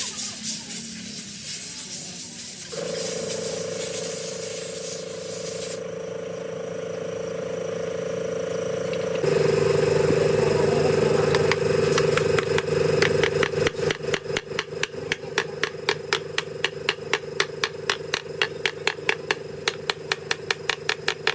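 A machine motor running with a steady hum that grows louder partway through, then joined by an even, rapid knocking about three times a second.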